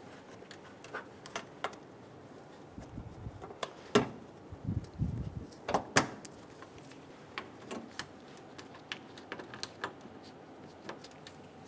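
Plastic push clips being pressed into a plastic engine-bay cowl cover by hand: scattered clicks and light plastic knocks, the two sharpest about four and six seconds in.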